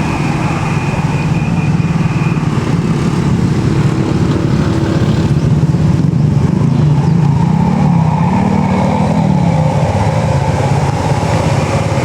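Road vehicle engines running under load on an uphill climb, with one engine's pitch rising then falling about eight seconds in.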